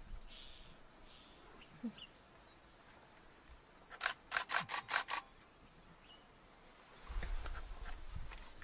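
A single-lens reflex camera's shutter firing in a rapid burst, about six frames in just over a second, over faint high bird chirps that repeat throughout. A low rumble comes in near the end.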